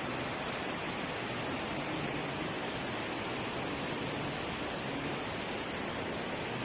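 Kali Gandaki river in monsoon flood, its swollen, surging water making a steady, unbroken rush.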